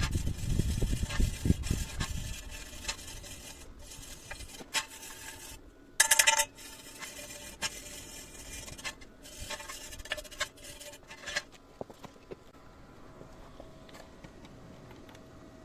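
Metal workpieces being handled, with scraping, rubbing and scattered clicks. There is one loud ringing metal clink about six seconds in, and it goes quieter near the end.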